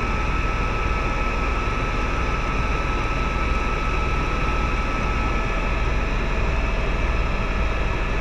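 Tour helicopter in cruise flight, heard from inside the cabin: a steady deep drone of rotor and engine with a constant thin high whine over it.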